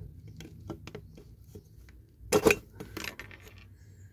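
Light metallic clicks and taps of small tools against a diecast metal toy while working at a stuck axle pin, with a louder clatter of a few knocks about two and a half seconds in.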